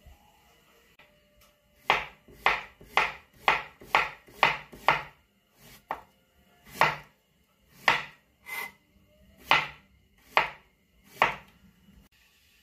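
Chef's knife slicing through a peeled green plantain and knocking on a plastic cutting board with each cut, about a dozen cuts in all. A quick run of about two cuts a second comes first, then slower, more spaced cuts.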